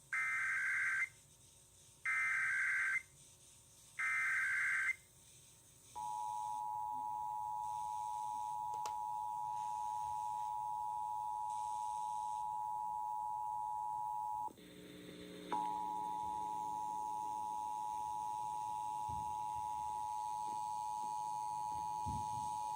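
Emergency Alert System signal: three short bursts of SAME header data tones about a second apart, then the EAS two-tone attention signal held steady, broken once partway through by a dropout of about a second.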